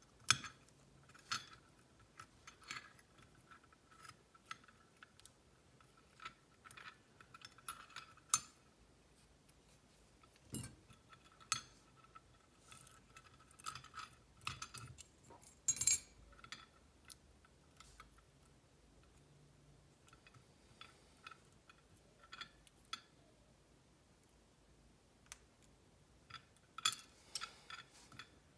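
Small metal parts of a disassembled Kwikset SmartKey lock cylinder clicking and tapping as they are handled with tweezers and fingers over a brass parts tray. Scattered light clicks at irregular times, the loudest about 16 seconds in and a quick cluster near the end.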